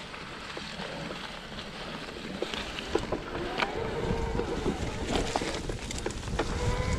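E-mountain bike ridden over a rough trail: a wind-buffeted rumble of tyres on the ground with scattered knocks and rattles. From about three seconds in, the bike's electric assist motor whines, rising a little in pitch and then holding steady.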